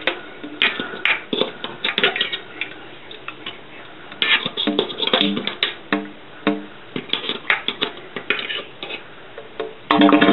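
Irregular metallic clanking and knocking from sewer-cleaning work, some strikes ringing briefly. Near the end a motor starts running loudly.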